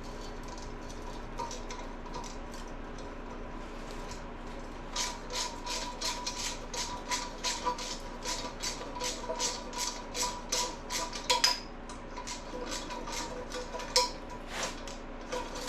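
Socket ratchet clicking in short, even strokes while backing out an exhaust manifold bolt on an LS 5.3 engine, about three to four clicks a second starting around five seconds in. A steady faint hum runs underneath.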